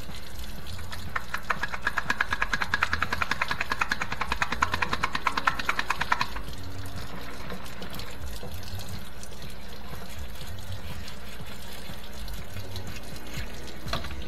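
Water sloshing and gurgling inside an old Moffat dishwasher's rinse-aid dispenser as it is flushed out to clear dried, crystallised rinse aid: a rapid, pulsing slosh for about five seconds starting a second in, then a faint steady background.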